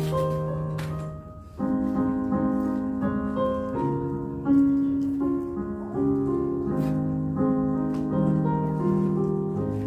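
Background piano music playing slow held notes, with a brief lull about a second and a half in.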